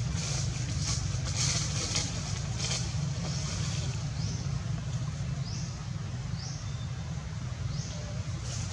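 Wind rumbling steadily on the microphone. In the second half, a series of short, high-pitched rising chirps comes about once a second.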